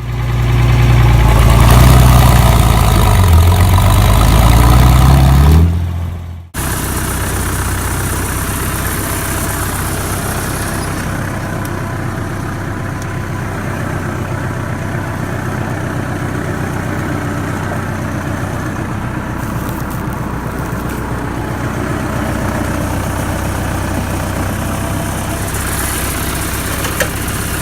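Tractor engine running: loud and shifting in pitch for the first five seconds, then after a brief break about six seconds in, running steadily at a lower level.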